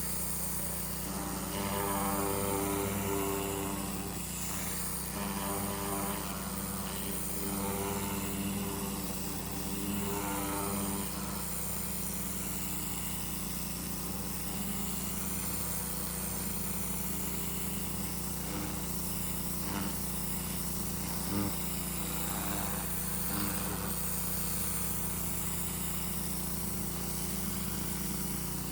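Small petrol lawn mower engine running steadily, its note swelling louder several times over the first ten seconds or so.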